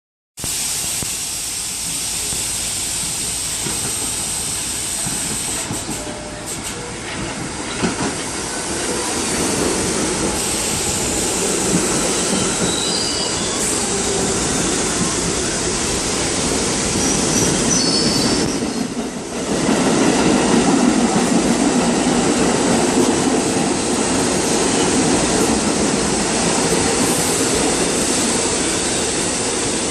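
R68A New York City subway train pulling into a station: continuous loud wheel-on-rail running noise with wheels squealing. It dips briefly a little past two-thirds through, then comes back louder as the cars pass close.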